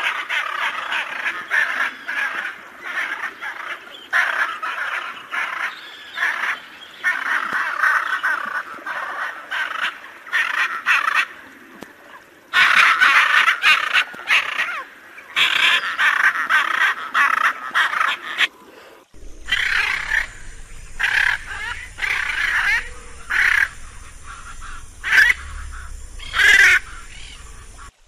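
Hyacinth macaw squawking over and over, the calls dense and near-continuous at first, then coming as separate squawks with short gaps. About two-thirds of the way in a low rumble appears under the calls.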